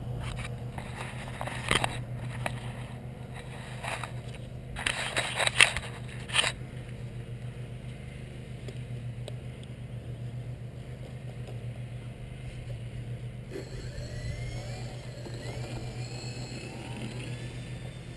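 Radio-controlled model twin-engine Cessna T-50 Bobcat in flight, its motors a steady low drone, with scraping and rubbing from the camera being handled during the first six seconds or so. Later the pitch glides up and down as the model flies past.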